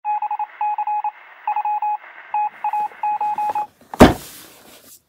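Electronic beeps at a single pitch, keyed in irregular groups of short and longer pulses like Morse code, over a faint radio-like hiss. About four seconds in comes a sudden loud crash-like hit that dies away over about a second.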